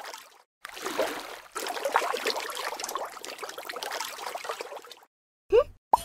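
Water trickling and sloshing, in three stretches with short breaks between them. Near the end it stops and a short, loud rising cartoon whistle effect sounds, starting a second, briefer one.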